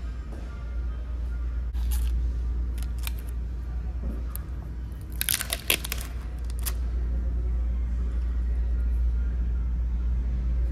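Peel-off lid of a McDonald's sweet 'n sour dipping-sauce cup being torn back, a quick cluster of crackles about five seconds in, with a few lighter clicks a couple of seconds earlier as the cup is handled. A steady low hum runs underneath.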